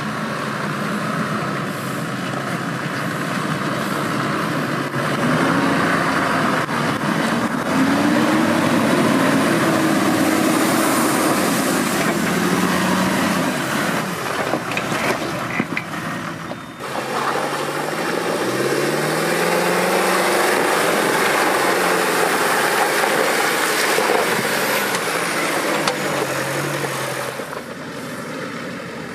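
Off-road 4x4 engine revving up and down under load as the vehicle works over rough ground, its pitch repeatedly rising and falling. The sound changes abruptly a little past halfway.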